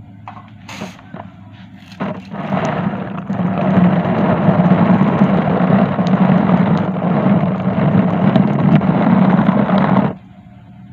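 Water sprayed onto a motorcycle helmet's visor, heard from inside the helmet. After a few light knocks, the spray starts about two seconds in, runs loud and steady, and cuts off suddenly near the end.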